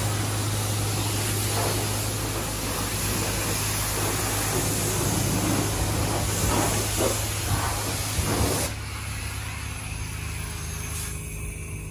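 Self-serve car wash pressure-washer wand spraying water onto a Jeep's body, a steady hiss. The hiss drops off sharply near the end, leaving a steady low hum.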